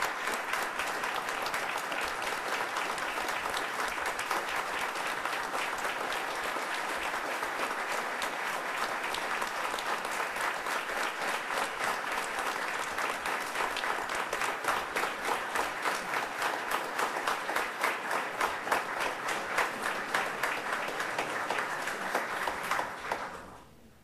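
Crowd applauding at length, a dense clapping that thins toward the end, with single claps standing out more, then dies away a second or so before the end.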